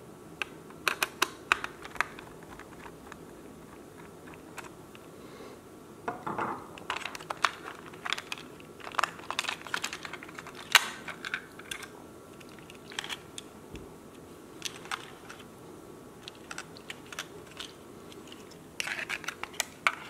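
Irregular small clicks and taps of a screwdriver and the plastic parts of a Kidde smoke alarm being handled, in scattered clusters, as the buzzer is unscrewed and lifted out and the photoelectric unit is pried at.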